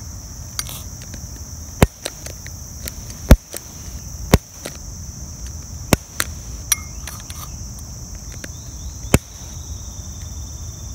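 Crickets chirping steadily, with about seven sharp knocks and clicks scattered through, the loudest about three seconds in.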